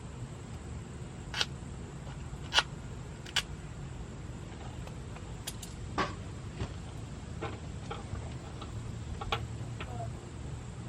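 Scattered sharp clicks and taps from handling small parts and tools while wiring the rock lights, about nine in all and irregularly spaced, the loudest about two and a half seconds in, over a steady low hum.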